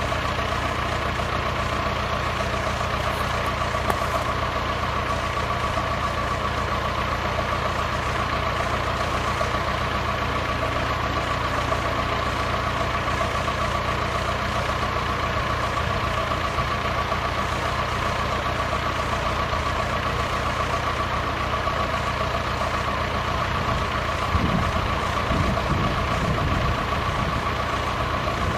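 Steady droning hum with a high whine over it, like a motor or engine idling. A few low rumbles come near the end.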